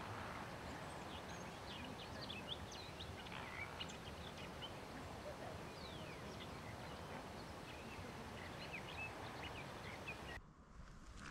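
Many short bird calls, chirps and quick sliding notes scattered over a steady outdoor hiss. Near the end the sound cuts abruptly to a quieter background.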